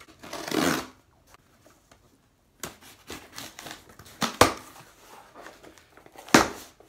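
Cardboard box being handled and its tape slit open with a knife: rustling and scraping of cardboard, with three sharp knocks spread through.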